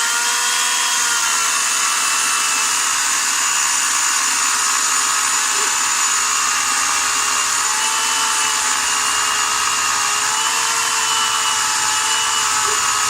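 Ivation 15-amp corded electric chainsaw running steadily at full speed with a high motor whine, the pitch sagging slightly a few times as the chain loads up in the wood.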